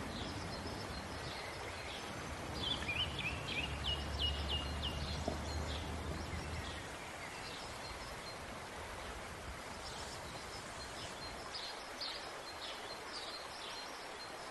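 Small birds chirping again and again over quiet outdoor background noise, with a quick run of chirps a few seconds in. A low rumble underneath stops about seven seconds in.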